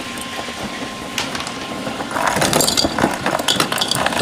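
Ice cubes clinking and rattling against a container, a dense run of sharp clinks that gets louder about two seconds in.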